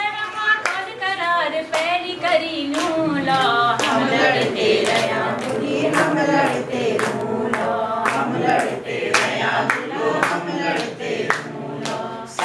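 Group of people singing a Kumaoni folk song together in chorus, with hand-clapping keeping a steady beat, about two claps a second.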